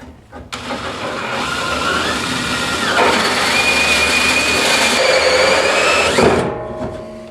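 Power drill running for about six seconds, cutting the faucet hole in the sink; its pitch steps up about halfway through as the load changes, then it stops abruptly.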